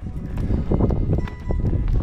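Wind buffeting the microphone with a steady low rumble, and snowshoe footsteps crunching in snow at a walking pace, over background music.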